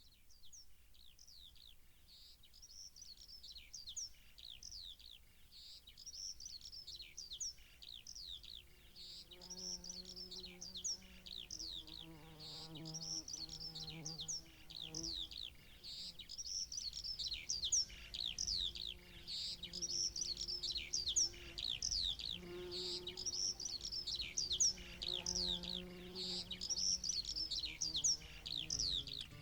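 Birdsong: rapid, repeated high falling chirps. Low sustained musical notes join in about nine seconds in.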